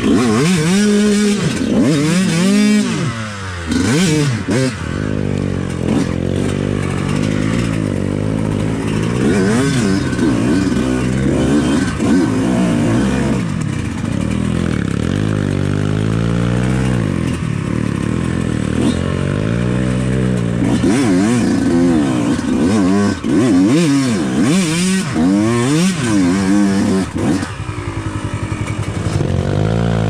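Yamaha YZ125X two-stroke single-cylinder dirt bike engine revving up and falling back again and again, every second or two, as the throttle is worked, with occasional clatter.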